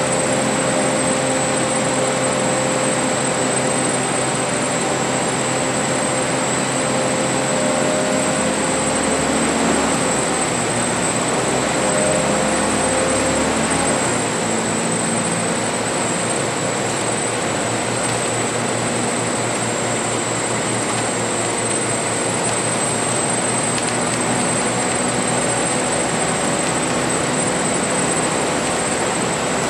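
Cabin noise inside a Volvo B10BLE CNG bus on the move: the engine drone mixed with road and body noise, with a thin steady high whine. About 14 seconds in the engine note changes and the deep low rumble drops away.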